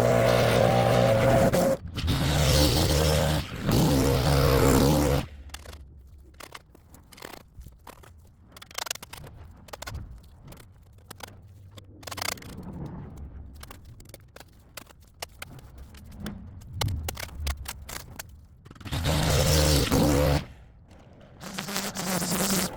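A small petrol engine of gas-powered lawn equipment runs steadily, then stops about five seconds in. A long stretch of scraping and scattered clicks follows, and the engine runs again briefly near the end.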